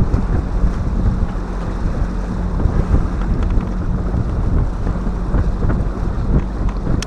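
Wind buffeting the microphone on a small fishing boat: a gusty low rumble, with a faint steady hum underneath.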